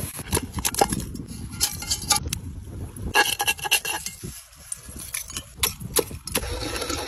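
Repeated scraping and clinking as a metal utensil scrapes dried sea-salt crust from the bottom of a metal pan. Near the end, a clay pestle grinds the salt in a terracotta mortar.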